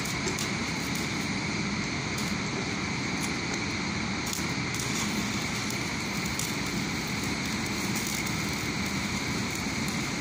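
Electric arc welding on a steel overhead-crane rail: the arc's steady crackling sizzle over a constant background drone.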